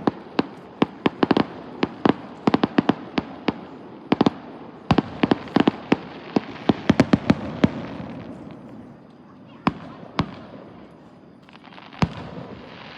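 Fireworks going off: a rapid, irregular run of sharp bangs and crackles, several a second, for the first seven seconds or so, then only a few scattered bangs.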